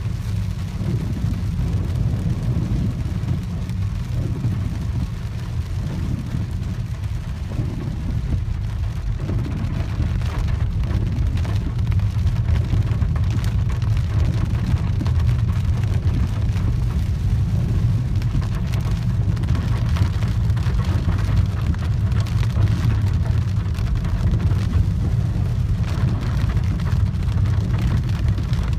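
Inside the cabin of a Peugeot 408 on the move: a steady low road-and-engine rumble, with the hiss of rain and tyres on the wet road.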